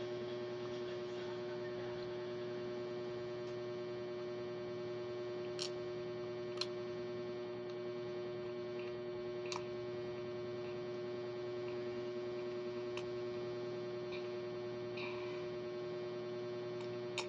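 A steady electrical hum holding one pitch, with a few faint small clicks scattered through it.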